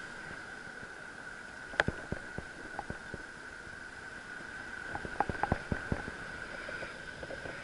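Scattered sharp clicks and scrapes from digging by hand in wet beach sand, with a cluster of clicks a little past halfway, over a steady high-pitched tone.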